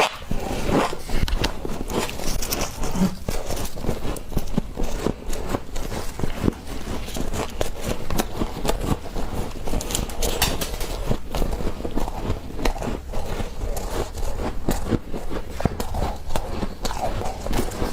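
Freezer frost crunching: a dense, continuous run of crisp crackles and crunches.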